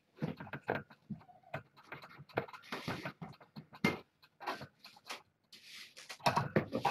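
A busy run of irregular scratching, rustling and knocking, with a hissing scrape about five and a half seconds in and the loudest knocks near the end.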